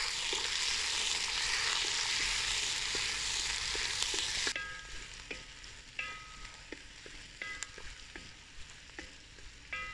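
Sliced onions sizzling in hot coconut oil in a metal uruli, stirred with a wooden spatula. The sizzle drops off suddenly about four and a half seconds in, leaving quieter frying with short scrapes and taps of the spatula against the pan.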